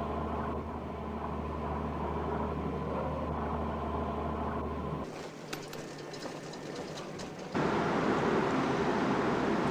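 Steady low engine drone, which cuts off suddenly about five seconds in. A few faint clicks follow, then a sudden, louder rush of wind and sea noise near the end. No horn sounds.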